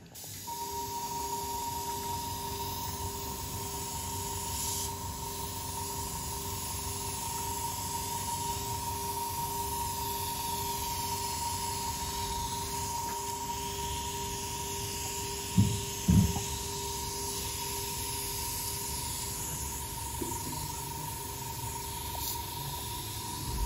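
Airbrush spraying makeup, a steady hiss of air, with a steady high tone and a lower hum underneath. Two brief low thumps about two-thirds of the way through.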